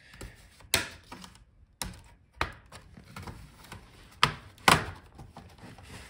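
Plastic clips of an HP 17 laptop's bottom case snapping loose as a plastic pry tool separates it from the palm rest: a series of sharp clicks, the two loudest in the second half.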